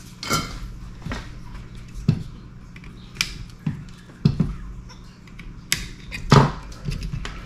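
Irregular clicks and knocks, about nine in all, from hand tools and a perfboard being handled on a desk, over a low steady hum.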